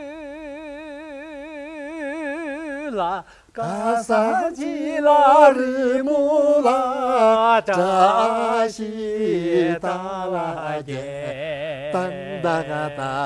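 A man singing a long held 'ah' with a wide, fast vibrato that breaks off about three seconds in. After a short gap he sings a melodic line whose notes step up and down, each one wavering with vibrato.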